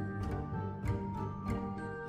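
Instrumental background music, with notes struck every half second or so over sustained tones.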